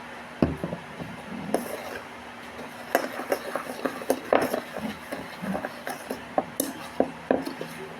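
A utensil clinking and scraping against a bowl in quick irregular taps, as homemade slime is being stirred.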